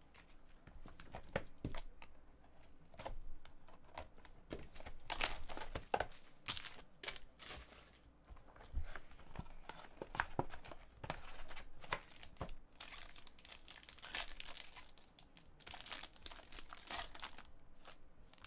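Clear plastic wrapping being torn open and crinkled by hand off a trading-card box and its cards, in irregular bursts of crackling and rustling, with light handling of the cardboard box.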